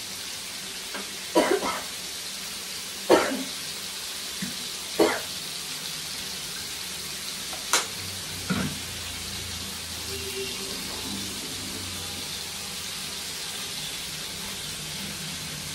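Small prawns frying in hot oil in a pan, giving a steady sizzle. A few short, loud sounds stand out over it, about one and a half, three and five seconds in, then a sharp click near eight seconds.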